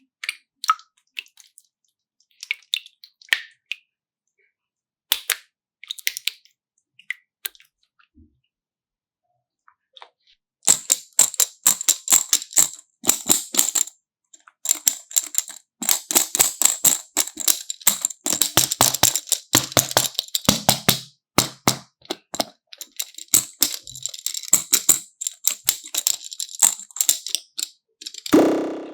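Close-up crisp crackling and clicking: a few scattered clicks at first, then a dense, continuous run of crackles from about ten seconds in, with a short dull thud near the end.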